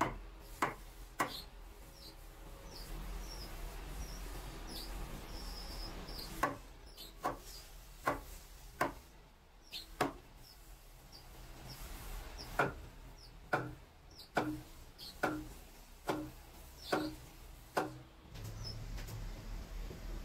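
Hard knocks on wood, one roughly every second, in a run of three and then a longer steady run of about a dozen. Short, high chirps repeat underneath.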